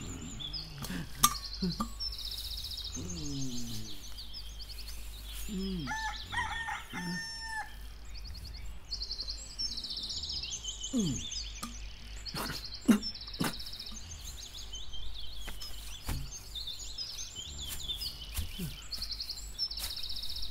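Rural bird ambience: small birds chirping in repeated short trills, with a rooster crowing about six seconds in. A couple of sharp knocks stand out about a second in and near the middle.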